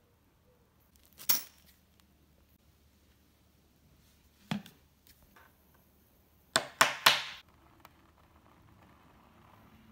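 A few sharp knocks and clicks from objects being handled: one about a second in, another near the middle, then three in quick succession a little later. Between them there is only faint room tone.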